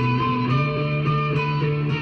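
Les Paul-style electric guitar playing picked single-note lines, several notes a second, over a steady low note.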